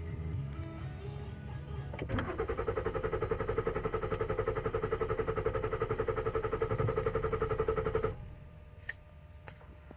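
A 2014 Ford Taurus Limited's engine cranks on the starter in a fast, even rhythm for about six seconds without catching, then stops. It will not start because its fuel pump module has failed.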